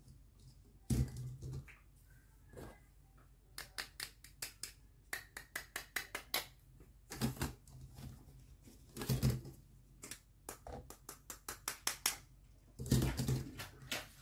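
Hollow plastic toy food and toy kitchen pieces clicking and knocking together as they are handled and dropped into a plastic basket. There are runs of quick light clicks and a few louder knocks.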